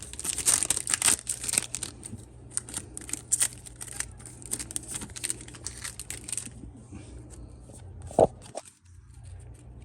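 Yu-Gi-Oh! booster pack wrapper crinkling and tearing as the pack is opened and handled, dense crackling for about the first six seconds, then quieter, with a single knock just after eight seconds.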